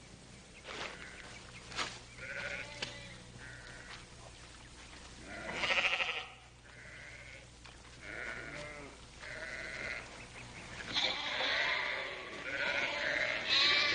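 A flock of sheep bleating, many short overlapping calls, loudest about halfway through and again near the end. A few sharp clicks sound in the first three seconds.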